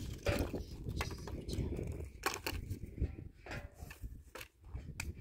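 Dry firewood branches knocking and clattering together as they are picked up and sorted by hand, a string of irregular sharp knocks.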